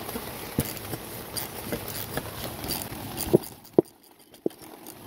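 Socket ratchet and hex key turning a bolt on a rear shock mounting bracket: scattered sharp metal clicks and knocks at uneven intervals over a steady hiss that fades out about halfway through.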